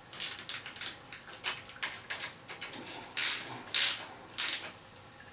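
Ratchet wrench clicking in short irregular runs, with metallic clinks, as the pinch bolts of an eccentric bottom bracket are tightened. The loudest clicks come about three to four and a half seconds in.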